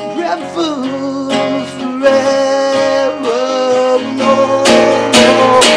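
Acoustic guitar strummed in a solo song, with a voice holding long, wavering sung notes over it. The strumming grows harder and louder near the end.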